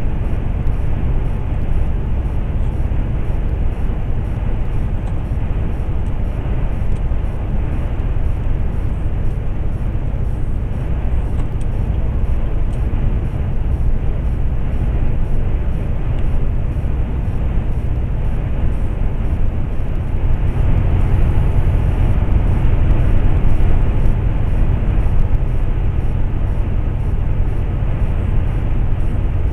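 Steady low rumble of a MAN articulated truck cruising at motorway speed: engine drone mixed with road and wind noise, heard from inside the cab. It grows a little louder for a few seconds past the middle.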